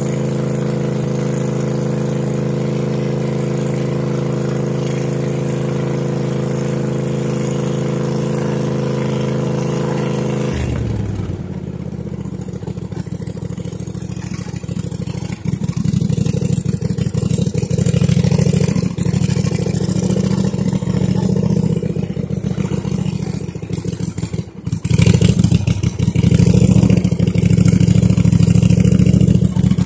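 John Deere 100 Series riding lawn tractor's engine running while driving through snow. Its hum holds steady at first, then about ten seconds in turns rougher and uneven and grows louder, with a brief dip about two-thirds of the way through.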